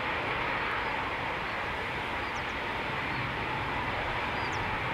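Lockheed C-130J Hercules's four turboprop engines droning steadily as the aircraft flies past low.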